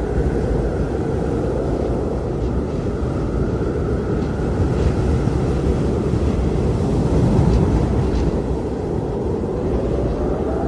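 Blizzard wind blowing steadily: a deep rumble with a whistling tone above it that rises in pitch near the end.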